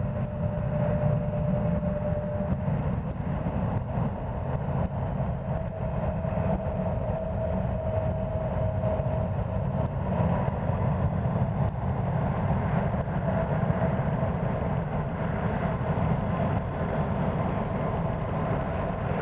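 Steady engine rumble with a faint whine that drifts slightly higher over the stretch.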